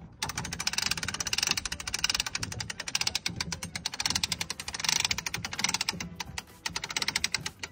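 Rapid, continuous ratcheting clicks from a NorDav swivel davit's winch as it hoists a 160 kg inflatable dinghy, with a couple of short pauses near the end.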